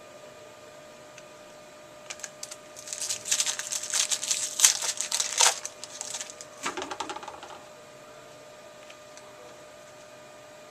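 A trading-card pack's foil wrapper crinkling and tearing open: a dense run of sharp crackles starting about two seconds in and lasting about five seconds.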